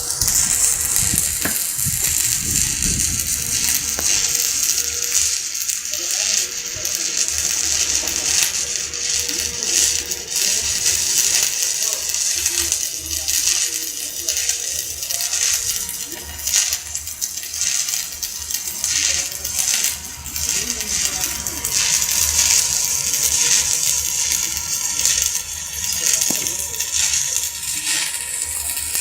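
Electric arc welding with a stick electrode: the arc crackles and sizzles continuously, with a faint steady hum underneath.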